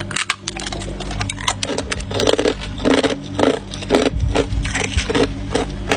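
Hard ice being bitten and chewed close to the microphone: a quick, irregular run of crisp crunches and cracks.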